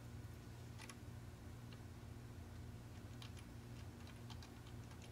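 Faint keystrokes on a computer keyboard as a word is typed: scattered single clicks, bunching up about three seconds in, over a low steady hum.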